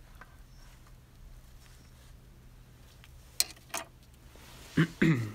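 Two sharp metallic clinks close together about three and a half seconds in, as a spanner is set down on a steel brake caliper, then a brief louder sound with a falling pitch near the end.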